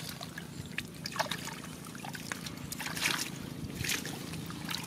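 Hands groping and splashing in shallow muddy water: irregular small splashes and sloshes, the sharpest about a second in and around three to four seconds in.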